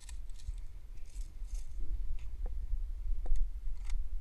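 Scattered sharp clicks and a brief rustle from airsoft pistol gear being handled during reloading, over a steady low wind rumble on the microphone.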